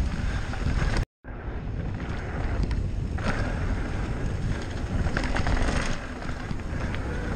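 Riding noise from an e-mountain bike on a dirt singletrack: wind buffeting the action-camera microphone over the rumble and rattle of the tyres and bike on the trail. The sound cuts out completely for a moment about a second in.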